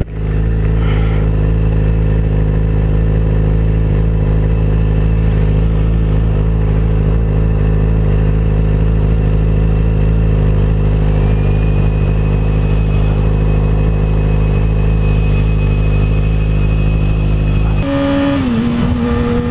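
Yamaha R6 600cc inline-four sport-bike engine idling steadily while stopped. Near the end the sound changes as the bike pulls away.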